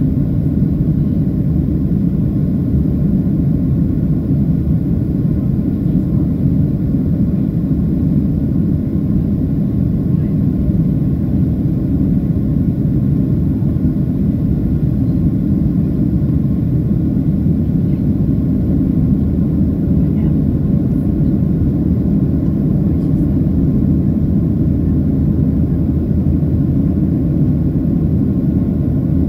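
Steady low roar inside the cabin of a Boeing 737-700 climbing after takeoff: its CFM56-7B turbofans and the airflow over the fuselage, heard from a window seat over the wing, with no change in pitch.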